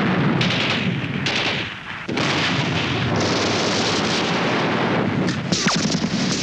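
Heavy gunfire and exploding shells of a street battle: a dense continuous din of reports. It has a brief lull just before two seconds in and a cluster of sharp cracks after about five seconds.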